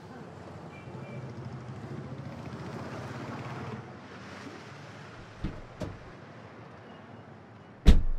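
A car door slams shut with a loud thud near the end, after two lighter knocks a couple of seconds earlier, over a low rumble during the first few seconds.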